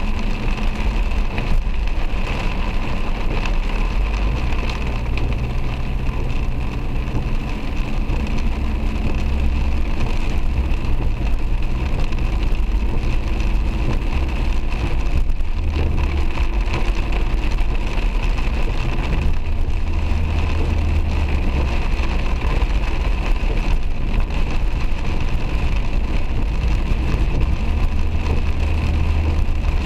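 Heavy rain falling on a moving taxi and its tyres hissing through water on the road, heard from inside the car over a low engine hum that shifts a few times with speed.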